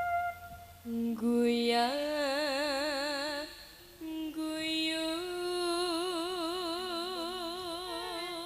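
A woman singing amplified over a PA, in the sindhen style of campursari: long held notes with a wide, even vibrato in two phrases, a short breath between them about three and a half seconds in, with little accompaniment under the voice.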